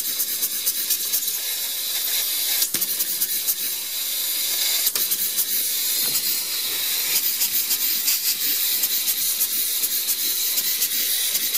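Steam hissing steadily from a small homemade steam engine, with a fine rapid flutter and two sharp clicks about three and five seconds in. The engine's valve cam follower has broken off, so the valve is no longer working properly.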